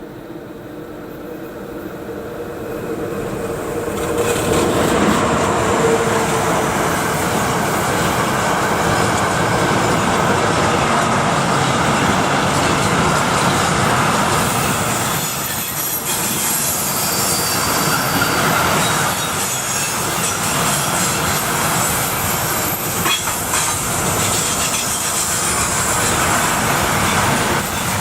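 A train approaching and passing close by on a mountain railway: the noise builds over the first four seconds, then a long, loud, steady run of wagons rolling past, with a few knocks from the wheels on the rails.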